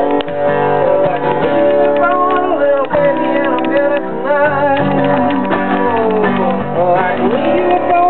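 Acoustic guitar being strummed steadily, with a voice singing a wavering melody over it.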